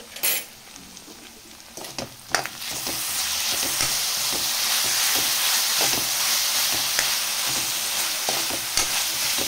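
Vegetables and sauces frying in a metal kadai and stirred with a spatula. After a few light taps at first, a loud steady sizzle starts about two and a half seconds in as the sauce-coated mix is stirred through the hot pan. The spatula knocks and scrapes against the pan throughout.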